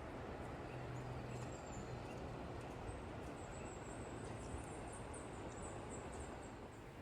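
A small bird calling a run of short, very high, thin notes, starting about three seconds in, over a steady outdoor rush of noise.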